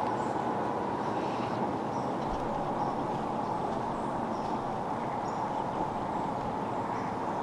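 Steady outdoor background rush, even throughout, with a few faint, short, high bird chirps scattered through it.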